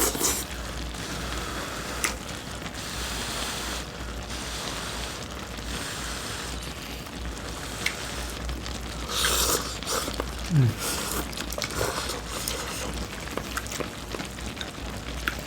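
Pot of Korean army stew (budae jjigae) bubbling steadily, with scattered clicks of utensils against the pot and bowls. A louder patch of eating noise comes about two-thirds of the way in.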